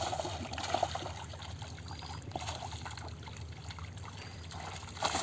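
Water trickling and splashing as a cast net is dragged out of shallow muddy water onto a wet mud bank, with many small scattered splashes and wet clicks.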